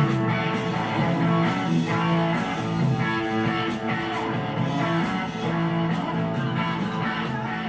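Film soundtrack music led by guitar, held notes changing every second or so at a steady level.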